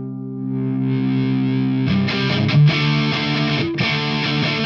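Electric guitar played through a Joyo JF-16 British Sound overdrive pedal, giving a distorted amp-like tone. A held chord rings on and grows brighter in the first second, then new chords are picked about two seconds in.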